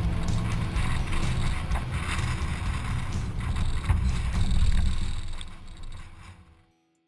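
Hummer 4x4 driving slowly up a rocky trail: low engine rumble with irregular rattling and knocking as the vehicle bumps over stones. It fades out about five seconds in, to silence near the end.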